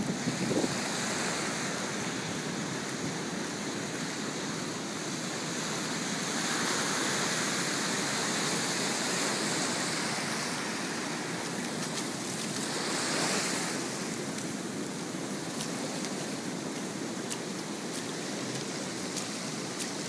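Ocean surf breaking and washing up a sand-and-cobble beach: a steady rushing wash that swells louder twice, about six seconds in and again around thirteen seconds.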